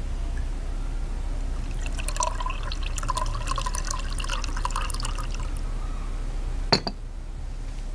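Water poured from a porcelain teapot into a small porcelain cup, a trickling, filling stream from about two seconds in to about five and a half. It is followed by one sharp clink near the end.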